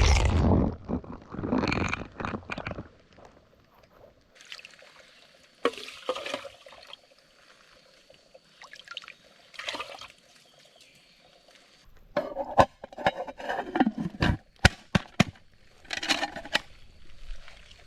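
Water being poured and sloshed, loudest in the first couple of seconds, then quieter rustling, with a run of sharp clicks and knocks near the end as the cooking pot and gear are handled.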